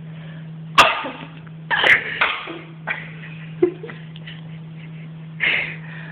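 A person sneezes suddenly about a second in, followed by a few shorter breathy bursts and another one near the end, over a steady low electrical hum.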